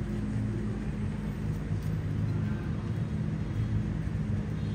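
Steady low rumble of motor-vehicle engine noise with a constant low hum, unchanging throughout.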